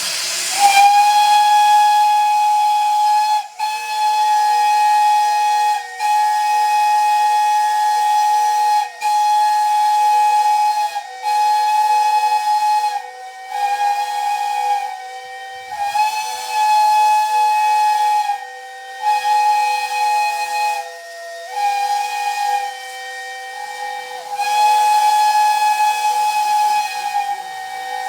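Train whistle sounding in a long series of blasts with about ten brief breaks. It is a chord of notes whose pitch sags and shifts from blast to blast, over a steady hiss.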